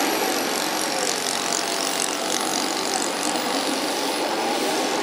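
A radio-controlled Piper Cub-style model airplane's engine running steadily in flight, with a thin high whine over the hum.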